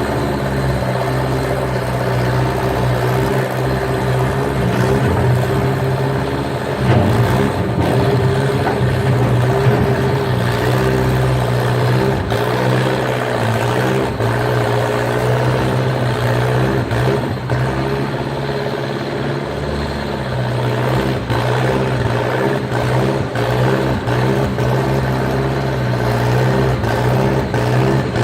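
Skid steer's engine running steadily under working load, its pitch rising and falling slightly as it works, with a few short knocks.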